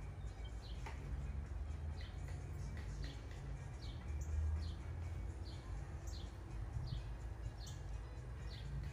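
A bird chirping over and over, short high notes that fall in pitch, about two a second, over a steady low rumble that swells briefly midway.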